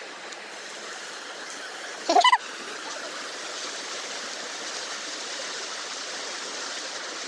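Steady rush of flowing stream water. About two seconds in, a brief loud vocal cry cuts through it.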